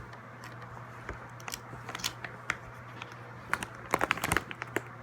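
Hands handling small objects: scattered sharp clicks and snaps, with a quick cluster of them about three and a half seconds in, over a steady low electrical hum.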